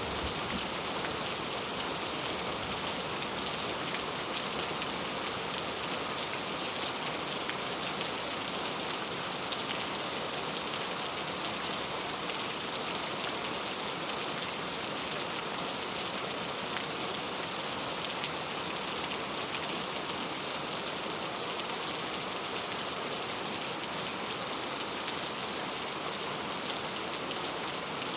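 Steady rain falling on a road: a dense, even hiss of rainfall sprinkled with the taps of individual drops.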